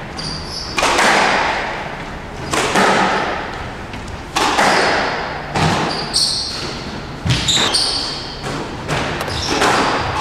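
Squash rally in an echoing court: the ball cracking off racket and walls about every one and a half to two seconds, each hit ringing out, with a few brief high squeaks around the middle.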